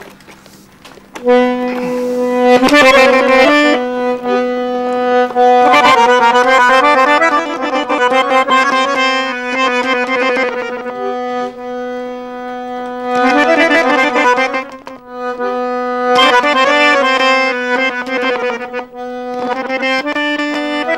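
A small accordion played solo: a held drone note under a quick, ornamented melody, starting about a second in, with a brief lull part way through.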